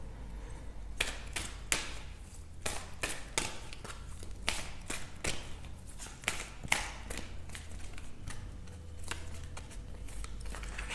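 A tarot deck being shuffled by hand, the cards giving quick, irregular light clicks and slaps, about two or three a second, over a faint low hum.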